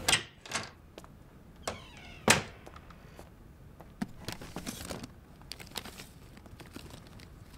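A cat meowing loudly three times in the first few seconds, the last the loudest. Then a nightstand drawer is rummaged, with envelopes and papers rustling and a few small knocks.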